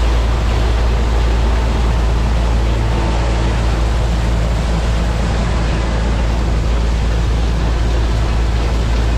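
New Holland TR99 combine's six-cylinder turbo diesel running steadily while harvesting soybeans: a continuous loud drone with a heavy low rumble and no breaks.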